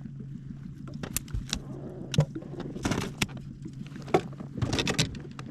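Scattered knocks, clicks and rattles of people moving about and handling gear in a small fishing boat, over a steady low hum.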